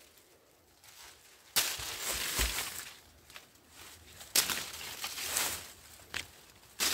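Crunching and tearing of fibrous plantain stalk and dry leaves being broken up among coffee bushes, with leaf rustling: three sudden bursts a few seconds apart, each trailing off over about a second.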